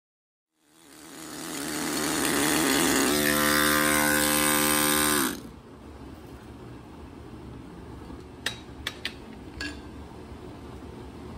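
Pneumatic stone-carving tool running against granite: a loud rattling buzz that fades in and cuts off abruptly about five seconds in. After it, a steady low shop hum with a few light clicks.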